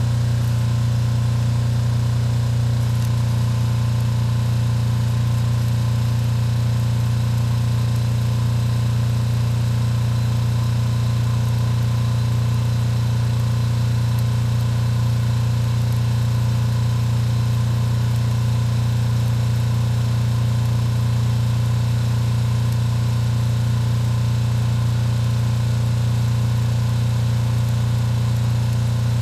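An engine on a mobile welding rig running at a constant speed: a steady low drone that does not change.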